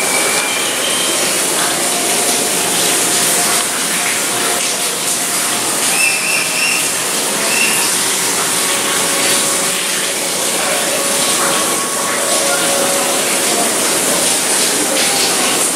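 Steady rushing of running water, with faint voices over it.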